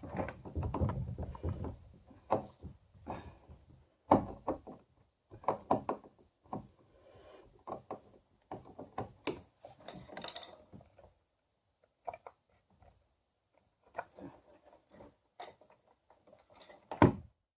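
Screwdriver work on a kayak's plastic rudder control: irregular clicks, knocks and short scrapes as screws are loosened and the parts handled, with a louder knock near the end.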